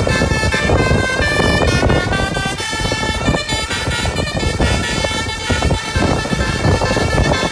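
Bus 'telolet' basuri horn, a multi-tone air horn, playing a tune of stepping notes over the bus's engine noise.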